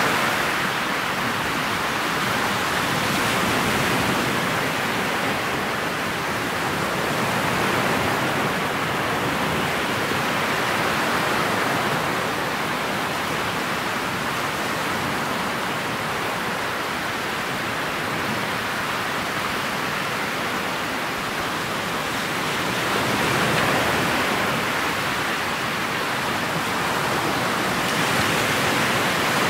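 Steady rush of water and wind as a motorboat runs through choppy lake water, swelling and easing every few seconds.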